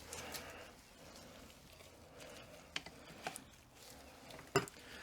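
Faint, scattered clicks and light knocks of small metal differential parts being handled and fitted, the loudest a little before the end.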